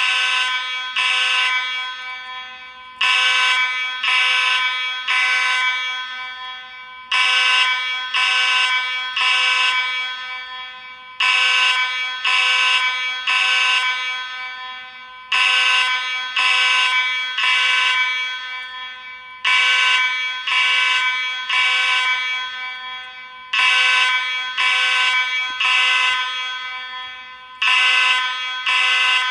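Space Age AV32 fire alarm horn sounding in the temporal-three evacuation pattern: three loud horn blasts, then a pause, repeating about every four seconds.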